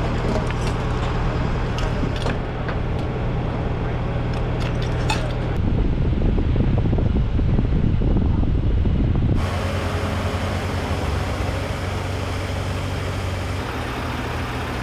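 Heavy vehicle engine running steadily, with sharp metal clinks over the first few seconds. The engine grows louder for a few seconds midway, then the sound changes abruptly, as at a cut, to a quieter steady engine hum.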